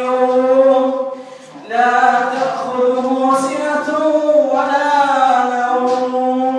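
A man's voice reciting the Quran in a slow melodic chant, holding long drawn-out notes, with a short breath pause about a second and a half in.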